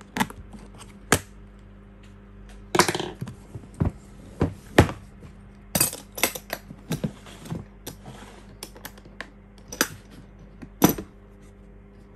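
A string of sharp clicks and knocks from a DeWalt hard plastic tool case being unsealed and opened: pliers snip the cable-tie seal, then the latches and lid clack as the case is opened.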